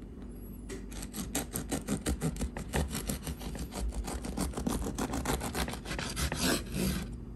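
Bread knife sawing through a whole wheat loaf on a wooden board: quick, even back-and-forth rasping strokes through the crust, starting about a second in and stopping shortly before the end.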